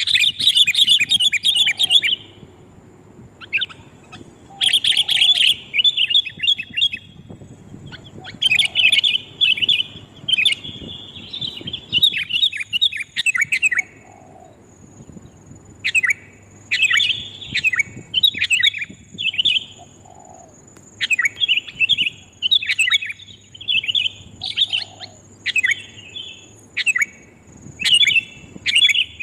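Sooty-headed bulbul lure call: bursts of quick, chattering calls repeated with short pauses. A thin, steady high tone joins about a quarter of the way in.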